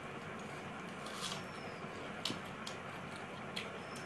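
Eating by hand: a few scattered soft clicks and smacks of chewing and fingers working rice, over a steady background hiss.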